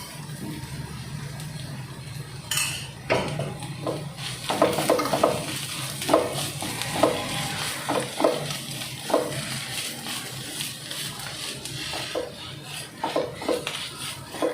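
A spoon stirring and scraping a thick vegetable cutlet mixture around a pan, in irregular strokes about once a second, with a faint sizzle of the oil.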